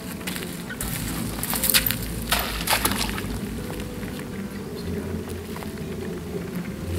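Crawfish traps tossed into a shallow creek, splashing into the water about a second and a half to three seconds in, over a low steady outdoor background.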